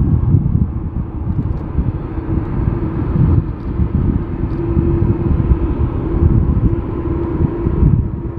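Boeing 787-9 airliner's jet engines running as it rolls along the ground: a low, fluctuating rumble with a faint steady hum in it.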